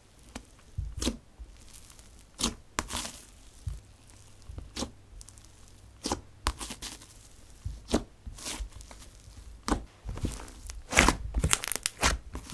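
Hands pressing, poking and squeezing a thick, dense slime, giving irregular sticky clicks and pops that come faster and louder near the end.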